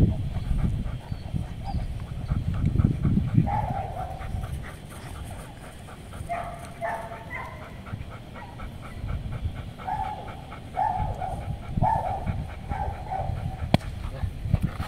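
A Doberman bitch whining in a run of short high whines, several in a row from a few seconds in, with panting. Low rumbling noise fills the first few seconds.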